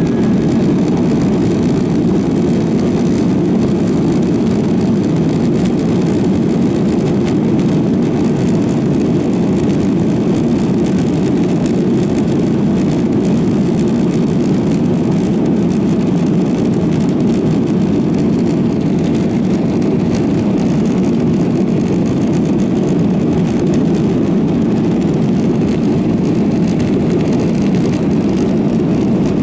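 Steady low rumble of a Boeing 737-900ER's CFM56 jet engines, holding an even level without rising or falling.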